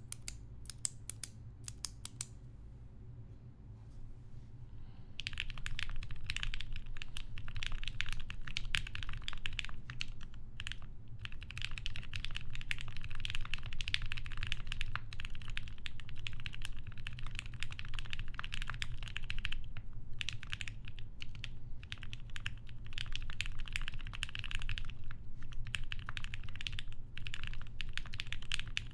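Fast, continuous typing on a TGR Jane v2 custom mechanical keyboard with lubed Gateron Black Ink v2 linear switches in an FR4 half plate and GMK keycaps, starting about five seconds in. Before it, a few separate sharp clicks.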